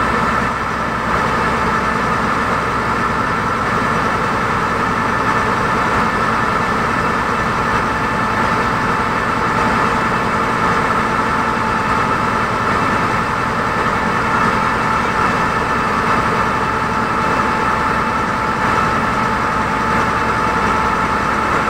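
A river ferry launch's engine running steadily underway, heard on board as a constant drone with a few steady tones.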